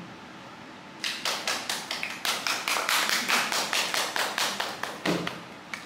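Small audience clapping: a run of separate, distinct claps starting about a second in and thinning out near the end.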